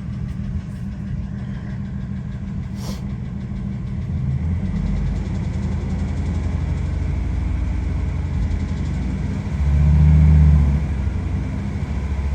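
Ford F-250 engine heard from inside the cab, idling with a fast, light tick that the owner is hunting down in the valve train (lash adjusters and rocker arms). About four seconds in the engine speed rises and holds higher, with two stronger surges near the end, and the tick fades as the revs come up.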